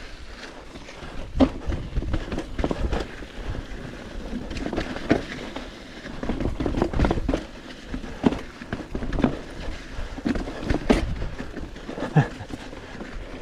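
Canyon mountain bike jolting over a rocky, rooty trail: irregular knocks and rattles from the tyres and frame, with a few sharper hits, over a low rumble.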